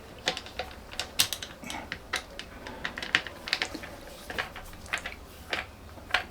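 Hand screwdriver tightening screws into the plastic handle clamp of a string trimmer, giving irregular sharp clicks and short creaks as the screws are cranked down.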